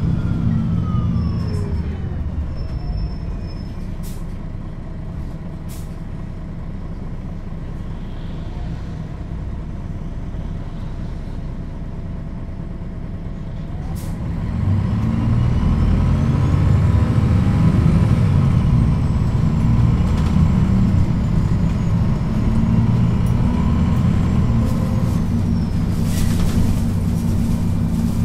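MAN NL 263 city bus diesel engine under way. It eases off and runs quieter at first, with several short clicks. About halfway through it pulls away louder, with a rising whine as the bus accelerates.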